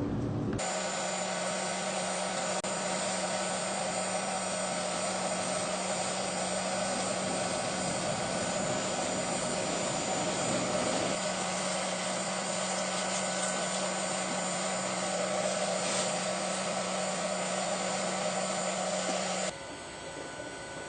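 Blower fan of a homemade hot air gun running steadily, pushing unheated air through to cool the heater element: an even rush of air over a constant hum. It stops abruptly about a second before the end.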